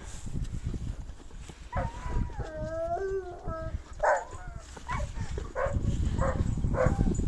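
Large livestock guardian dogs howling in long wavering notes, several pitches at once, then breaking into short barks about twice a second.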